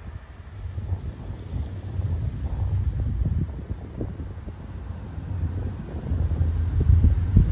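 An insect chirping, a high-pitched, evenly repeating pulse, over a low rumble that grows louder near the end.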